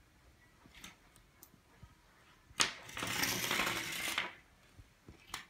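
Metallic jingling rattle from a coil of bare copper wire with a battery-and-magnet train in it. It starts with a sharp click about halfway through and lasts about a second and a half, with another click near the end.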